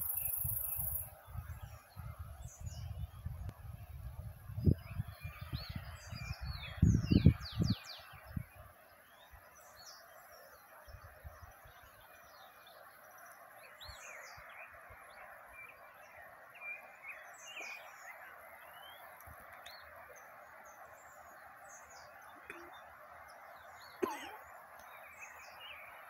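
Wild birds chirping and calling over the steady babble of a mountain stream. A low rumble, like wind buffeting the microphone, covers the first eight seconds or so and then stops.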